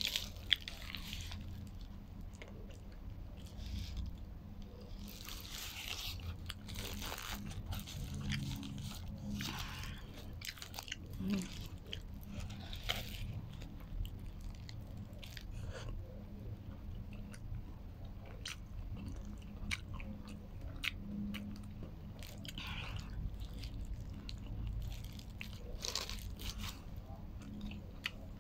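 Close-miked eating of a shawarma wrap: repeated biting and chewing mouth sounds, with the foil and paper wrapper crinkling at times.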